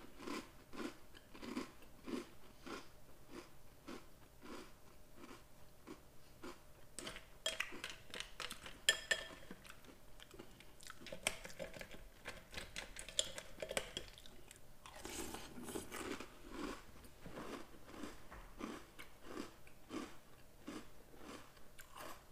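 Close-miked chewing of crunchy Oreo O's cereal: steady crunching chews about two a second, with a few stretches of louder, crisper crackling crunches.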